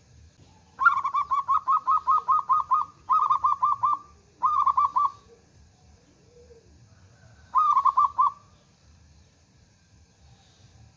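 A zebra dove (perkutut) sings its cooing song, a fast run of short staccato notes. It comes in four phrases: a long one starting about a second in, two shorter ones right after it, and a last short one near the end after a pause.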